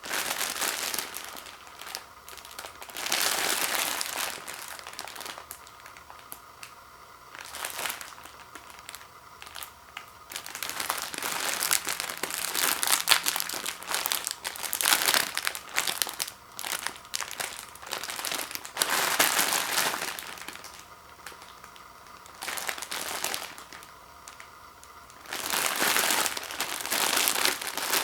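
Plastic wrapping of a Maruchan instant ramen six-pack crinkling as it is handled and opened, in repeated bursts with short pauses between them.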